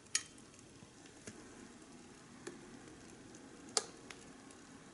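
Sharp little clicks and taps of metal tweezers on a tiny dish and of a miniature metal fridge door being shut, the loudest just after the start and a little before the end, over a faint steady hiss of the small pot simmering.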